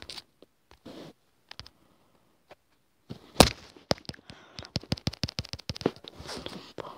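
Music cuts off at the start, followed by a few faint clicks. From about three seconds in comes a rapid, irregular run of sharp clicks and taps, like fingers tapping and handling a phone right at its microphone.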